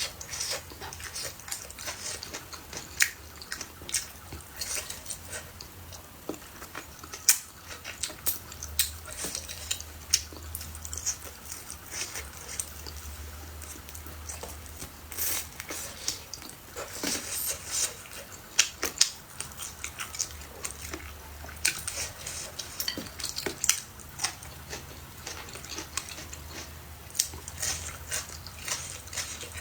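Close-up eating sounds: chopsticks or a spoon clicking and scraping against bowls and dishes in many sharp, irregular clicks, with chewing, over a low steady hum.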